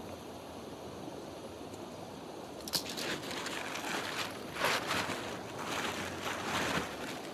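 River water flowing steadily, with a run of irregular, louder noises of unclear source starting about three seconds in and lasting almost to the end.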